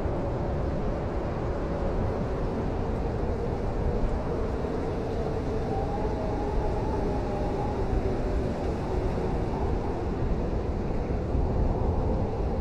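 Blizzard wind blowing steadily: a low, rumbling rush of noise with a faint wavering howl that rises and falls in pitch.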